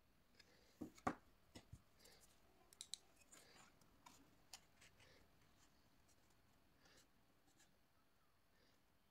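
Faint handling sounds of folded white cardstock and a wooden spring clothespin: a few sharp clicks, the loudest about a second in, with soft paper rustling between them as the clothespin is clipped onto the box's flaps.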